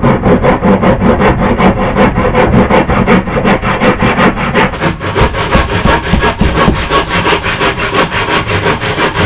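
Hand saw cutting through a thick wooden log in quick, regular back-and-forth strokes.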